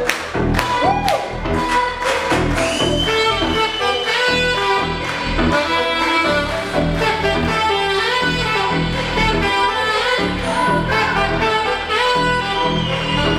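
Saxophone playing a jazz melody, with held notes and bends, over a rhythmic accompaniment.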